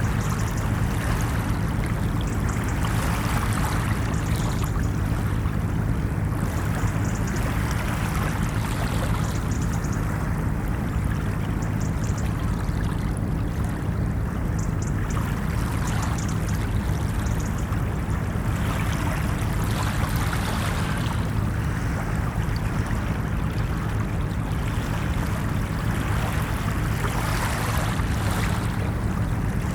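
Ocean surf washing onto a beach: a steady low rumble of water with a wave swelling and hissing in every few seconds.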